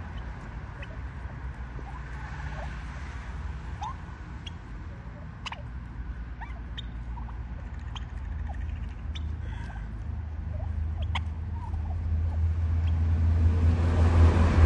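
Birds chirping in short, scattered calls over a steady low rumble that grows louder over the last few seconds.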